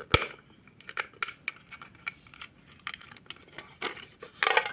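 Hands working at opening a toy's packaging: scattered clicks, taps and crinkles, with a sharp snap just after the start and a longer burst of rustling near the end.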